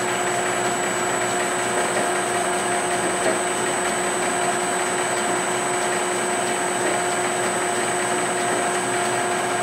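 Metal lathe running steadily, its tool taking a very light finishing cut on a Tecumseh engine crankshaft: an even mechanical hum with a constant whine.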